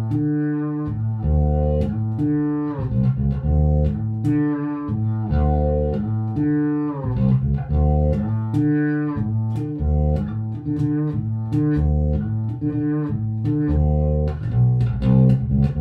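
Yamaha BB1100SF fretless electric bass playing a melodic line of plucked, sustained notes, with several slides between pitches.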